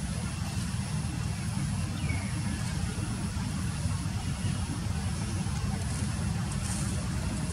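A steady low rumble with a faint hiss over it and no clear animal call.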